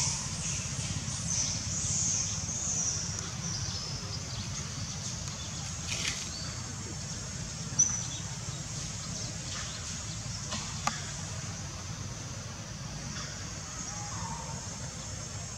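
Forest ambience: a steady high-pitched chorus of wildlife, loudest in the first few seconds, over a low rumble, with a couple of sharp clicks, the loudest about eight seconds in.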